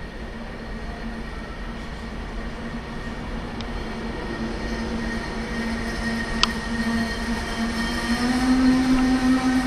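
A train approaching along the line, its steady drone growing louder and stepping slightly up in pitch near the end, with a sharp click a little over halfway through.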